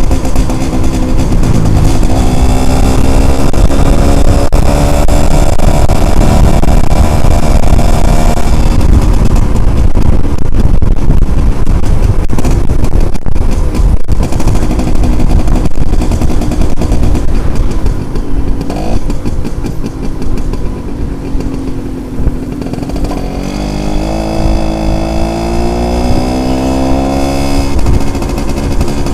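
Yamaha Alfa two-stroke motorcycle engine running under load while riding. Its pitch climbs as it accelerates, eases off and drops through the middle, then climbs again near the end.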